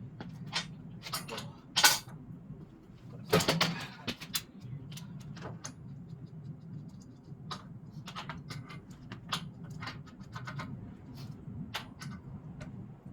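Steel MIG welding wire being wound by hand from a broken spool onto a homemade jig: irregular metallic clicks and rattles over a steady low hum, louder about two seconds in and again around three and a half seconds in.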